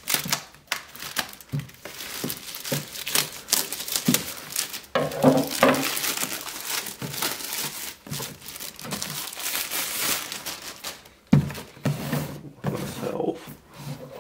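Clear plastic shrink wrap crinkling and tearing as it is pulled off a cardboard product box, with a few bumps from the box being handled.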